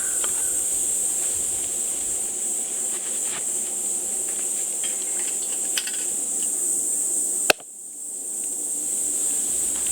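Insects trilling steadily in a high, even chorus, with a few faint crackles. A sharp click comes about seven and a half seconds in, followed by a brief dip in level.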